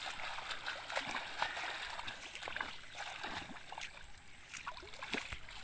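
Shallow muddy water sloshing and splashing as a bamboo-framed push net is shoved through it by a person wading, with irregular small splashes from the steps.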